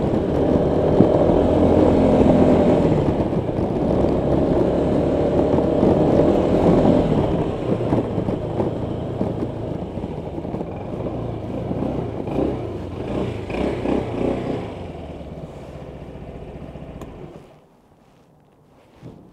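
Honda PCX 125 scooter's single-cylinder four-stroke engine running under way with wind and road rush, slowing and quieting over the second half, then cutting off about seventeen seconds in. A few faint clicks follow.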